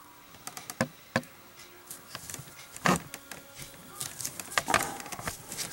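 Packaging being handled and opened by hand: scattered light clicks, taps and rustles, the sharpest knock about three seconds in.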